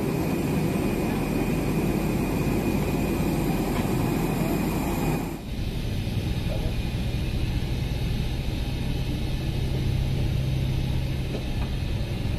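Steady apron noise of aircraft and ground vehicles, a broad rush with faint high steady tones. About five seconds in it cuts to the lower, steadier hum of an apron shuttle bus's engine running.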